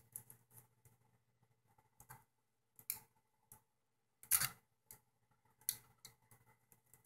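Small scattered clicks and scrapes of a bent paper clip working against the spring-loaded battery-door hinge pin and plastic body of a Canon PowerShot A70 digital camera as the pin is pushed out. The ticks are short and separate, with the loudest cluster a little over four seconds in.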